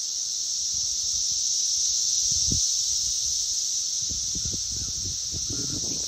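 Dense chorus of periodical cicadas in the trees, a loud, steady, high-pitched drone that never lets up. There are occasional low rumbles on the microphone.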